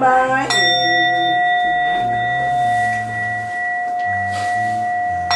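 A bowl bell struck once about half a second in, ringing on with a steady, clear tone that fades only slowly. Low tones shift in pitch underneath it.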